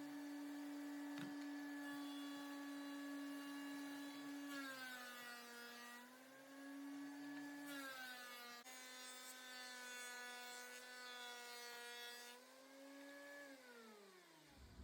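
The Wen thickness planer's electric motor running with a steady hum. Its pitch sags and recovers twice in the middle, then falls away and stops near the end, as at switch-off.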